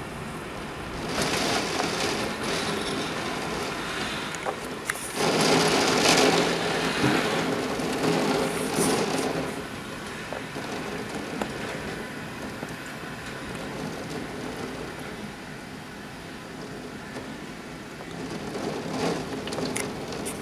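Steady rain with surges of wind-driven rain: one swells up about a second in, and a louder one starts suddenly about five seconds in and lasts some four seconds; a smaller surge comes near the end.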